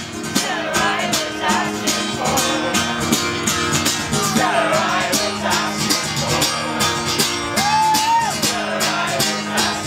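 Acoustic guitar strummed in a steady rhythm, with singing over it: a folk-style song.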